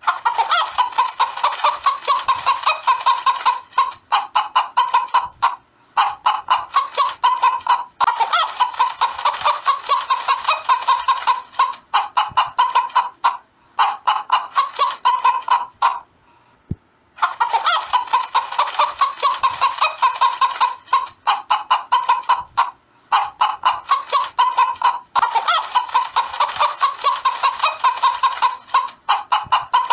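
Hen cackling in fast runs of repeated calls, each run lasting a few seconds, with short pauses between them.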